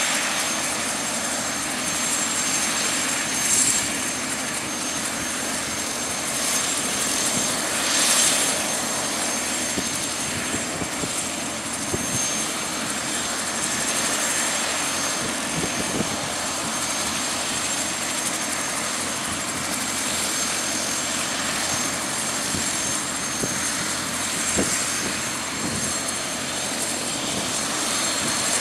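Cessna 152's four-cylinder Lycoming engine running steadily while the plane holds at the runway end before take-off.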